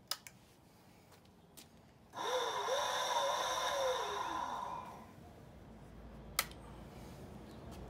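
Razor E200 electric scooter's drive motor and chain whirring as the throttle is twisted, holding a wavering pitch for about a second and a half, then winding down with a falling pitch as the throttle is let go. This is a test of the newly wired throttle. A sharp click comes just after the start and another comes near the end.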